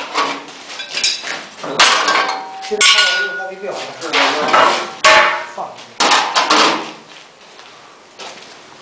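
Steel parts knocking and clanging together, a series of irregular metal strikes with ringing after several of them, as a steel frame is handled; it goes quieter for the last couple of seconds.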